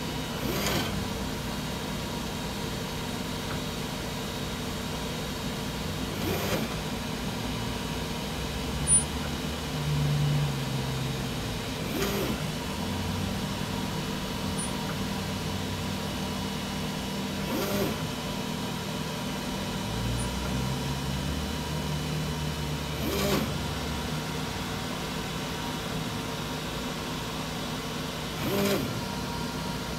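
3D printer's NEMA 23 stepper motors driving high-helix Igus lead screws (50 mm lead) as the print head moves, making a steady motor whine. About every five and a half seconds there is a short rising-and-falling sweep as the motors change speed.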